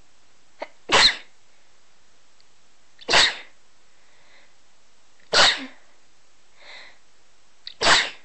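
A person sneezing four times, about two seconds apart, each a sharp short burst, some with a quick catch of breath just before. The sneezes are deliberately induced. Faint breaths or sniffs come between the later sneezes.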